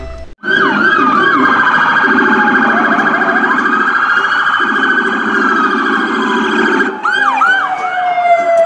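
Several police car sirens sounding at once, starting just after a brief drop-out: fast electronic yelps over a held wail, with one siren sliding slowly down in pitch near the end.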